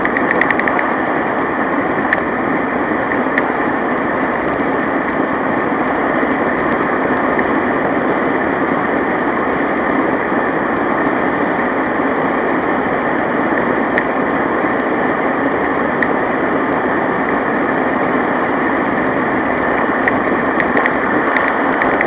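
Steady rushing wind and road noise from moving along a road at speed, with a few light ticks or rattles now and then, a small cluster near the start and another near the end.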